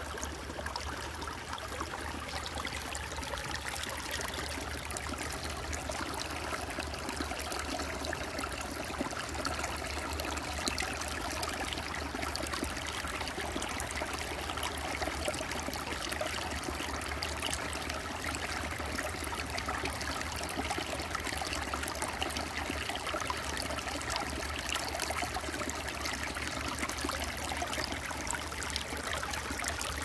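Shallow, clear mountain creek flowing and trickling over rocks and stones, heard close at water level as a steady babble.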